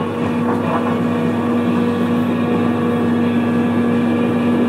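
John Deere heavy machine's diesel engine running steadily under work, an even drone.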